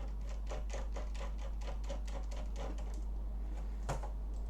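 Quick run of light clicks, about seven a second for some three seconds, then one sharper click near the end, from hand work on a laptop's base while its screws are being taken out. A steady low hum runs underneath.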